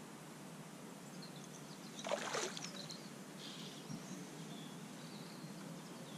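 A hooked common carp splashing at the surface close in, one short splash about two seconds in that is the loudest sound, over faint outdoor background.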